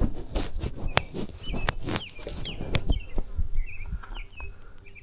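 A small bird chirping over and over in short, falling notes, with a steady high pulsing insect trill behind it. Irregular sharp knocks and scuffs of the hiker's footsteps run underneath.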